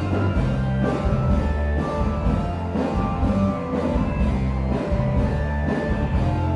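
Background rock music with a stepping bass line and drums.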